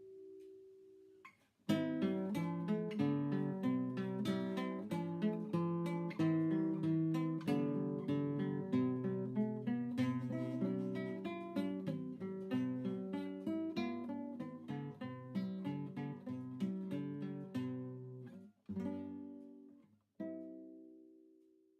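Acoustic guitar music, plucked and strummed. A quick flow of notes begins about two seconds in, and the music ends on a few chords, the last one ringing out and fading.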